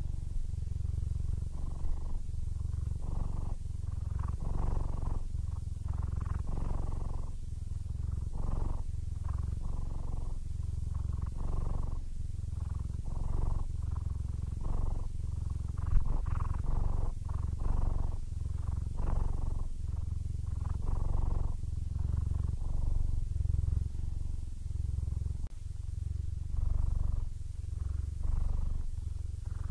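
Siamese cat purring steadily, the purr rising and falling with each breath in and out, about once a second: a contented, happy purr. One short knock about halfway through.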